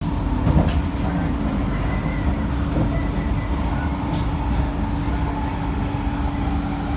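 Inside a C151B MRT train running along the track: a steady low rumble of wheels and running gear with a constant hum, and a few faint ticks.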